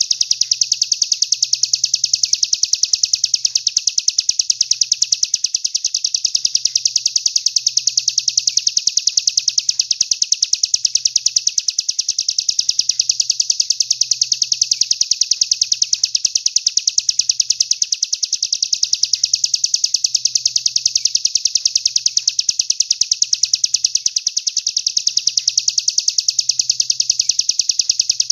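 A songbird's high, fast, even trill, held without a break, as used in a master recording for training competition songbirds.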